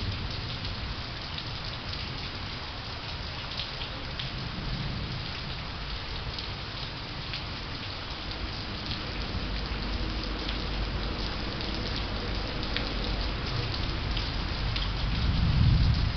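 Steady rain falling, an even hiss with the tick of individual drops hitting a surface. A low rumble swells near the end.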